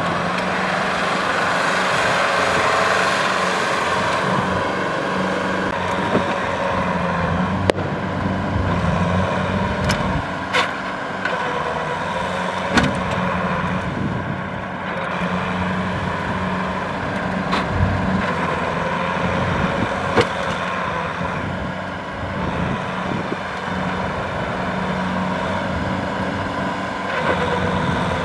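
Kubota M6040SU tractor's diesel engine running steadily as the tractor works through deep, sticky mud, with a few sharp knocks scattered through it.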